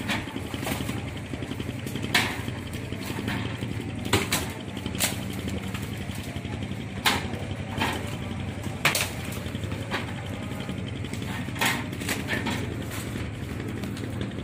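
Live mud crabs being handled and weighed: irregular sharp clacks and knocks, about one every second or two, as crabs are set on a digital scale and dropped into plastic crates. A steady low machine hum runs underneath.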